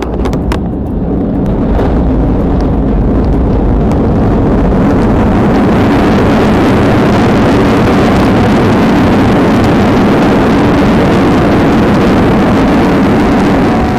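Airliner jet engines spooling up into reverse thrust during the landing roll, a loud, steady roar that builds over the first couple of seconds and then holds. The engines are revving hard while the plane is slowing on the runway. The sound cuts off abruptly at the end.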